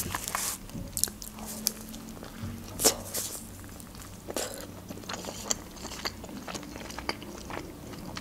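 Close-miked biting and chewing of a homemade shawarma wrap: irregular soft crunches and wet mouth clicks.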